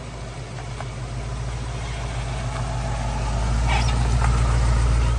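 Early Ford Bronco driving up and passing close by, its engine's low drone growing steadily louder as it nears.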